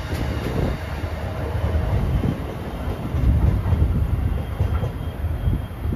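MBTA commuter train's bilevel coaches rolling past at close range: a heavy wheel-on-rail rumble with irregular clacks. The last car clears about halfway through and the train moves away.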